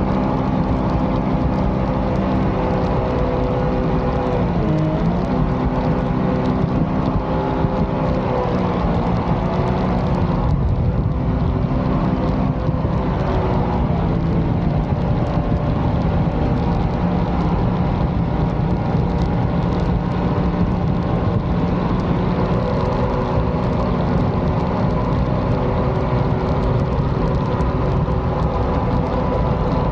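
Mini jet boat's supercharged engine running under way at cruising speed. Its pitch drops briefly about four to five seconds in, wavers again around ten to fourteen seconds, then holds steady.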